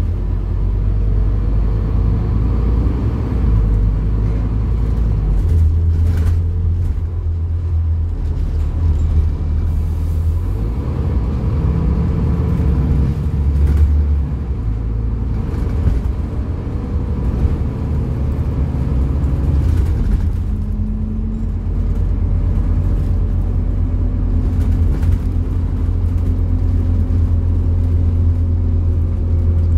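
Scania engine of an Alexander Dennis Enviro400 double-decker bus running under way, heard from inside the passenger saloon as a steady low rumble with road noise. The engine note rises once about halfway through.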